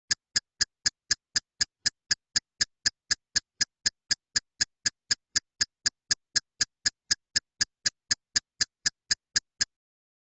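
A ticking sound effect: short, sharp, identical ticks at a steady pace of about four a second, stopping shortly before the end.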